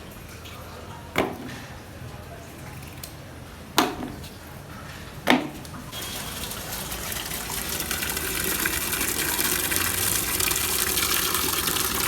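Three sharp knocks, then water pouring into a cooking vessel in a steady rush that grows louder as it fills.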